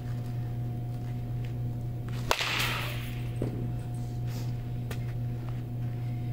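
A wooden or metal baseball bat meets a ball with a single sharp crack about two seconds in, followed by a short hissing swish. A steady low hum runs underneath.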